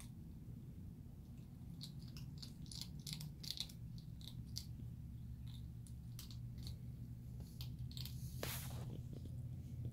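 Young striped skunks crunching and chewing dry pet-food pellets: irregular small crisp clicks and crunches over a steady low hum, with a brief louder rustle near the end.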